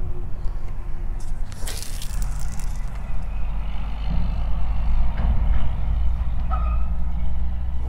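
Strong wind buffeting the microphone: a steady low rumble that grows stronger about halfway through.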